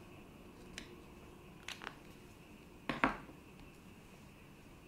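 A few light clicks and taps from small tools being handled and set down on a workbench mat, the loudest about three seconds in.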